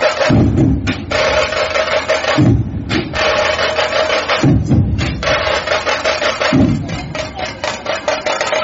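Percussion music: fast, dense drumming over a held tone, with a deep thud about every two seconds.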